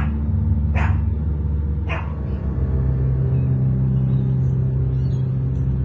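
Low, droning background music that moves to a new chord about two and a half seconds in, with three short sharp sounds over the first two seconds.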